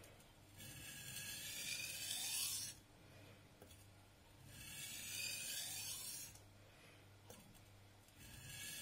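Masutani VG10 Damascus nakiri blade being pushed along a wet whetstone in slow, long sharpening strokes, a gritty scraping rasp. Two full strokes of about two seconds each, with a third starting near the end.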